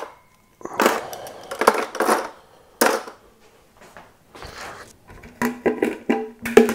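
Short scrapes and knocks of kitchenware being handled and set down on a counter, several in a row, with a brief ringing tone near the end.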